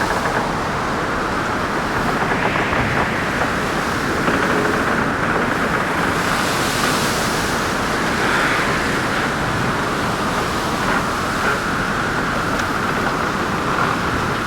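Storm-at-sea sound effect: a steady rush of wind and waves, with a whistling wind band that rises and falls in pitch.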